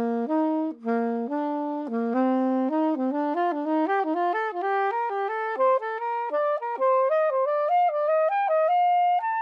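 Soprano saxophone playing a practice pattern of leaps, starting from low C: the same interval figure is repeated on each step as the line climbs steadily higher. The notes come slowly at first, then faster from about two seconds in.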